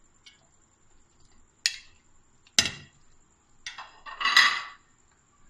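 Pieces of raw meat on the bone dropped into a metal pressure cooker: three separate sharp knocks against the pot, then a longer, louder clatter about four seconds in.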